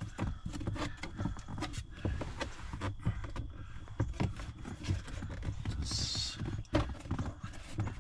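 Irregular clicks, taps and knocks of hands and tools working at the plastic trim under a car's dashboard, with a brief hiss about six seconds in.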